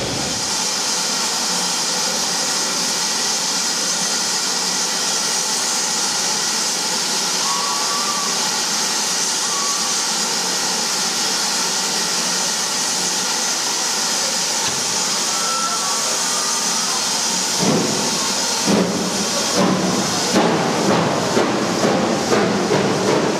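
GWR Prairie 2-6-2T steam tank locomotive No. 5521 blowing off steam with a steady loud hiss. About 18 seconds in it begins to pull away, its exhaust beats starting slowly and coming faster and faster.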